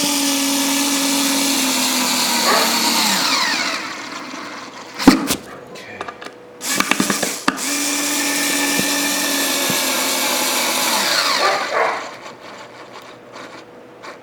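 Cordless drill driving galvanized screws into pre-drilled pine, in two long runs of steady motor whine. Each run drops in pitch near its end as the screw seats. Between them come a sharp click and a few short trigger bursts.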